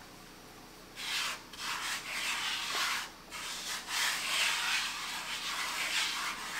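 Plastic bag of flour rustling and crinkling as hands reach into it. The rustling starts about a second in and goes on in bouts with a few short pauses.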